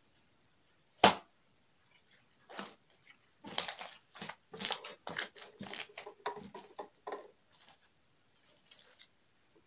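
Slime being worked by hand: one loud slap about a second in, then a run of irregular wet squelches and crackles as it is kneaded and squeezed, tailing off into faint crackles near the end.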